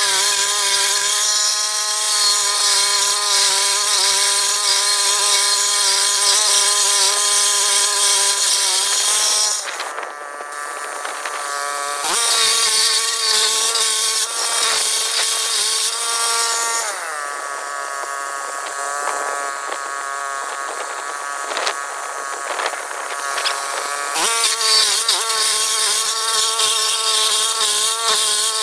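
Walk-behind stump grinder's small gasoline engine running hard while its cutter wheel grinds into a tree stump, with a steady engine note under a hiss of chipping wood. About ten seconds in the sound drops and the note shifts. Around seventeen seconds the pitch slides down and stays lower, a sign of the wheel loading the engine, then it comes back up to the first steady note near the end.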